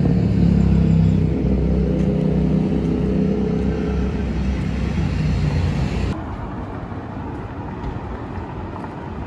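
Background music fading out over the low rumble of road traffic. About six seconds in the music stops abruptly, leaving only the traffic rumble.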